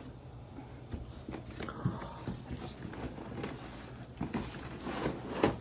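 Packing material and plastic wrapping rustling, with irregular clicks and knocks, as vacuum cleaner parts are handled and lifted out of the cardboard box; one sharper knock comes near the end.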